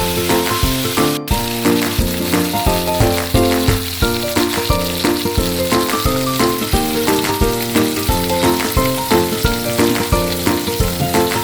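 Food sizzling as it fries in hot oil, a steady hiss, under rhythmic background music; the sound drops out for an instant about a second in.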